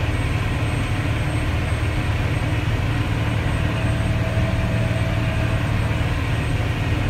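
Caterpillar 966G wheel loader's diesel engine running steadily as the machine drives along, heard from inside the cab.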